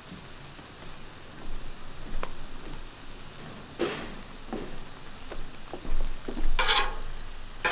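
Food sizzling on a Blackstone flat-top griddle, a steady hiss, with scattered clicks and scrapes of a spatula on the griddle's steel; the loudest scrapes come near the end.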